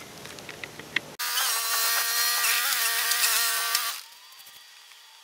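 A motor-driven machine running with a steady whine and hiss. It starts abruptly about a second in and cuts off about four seconds in.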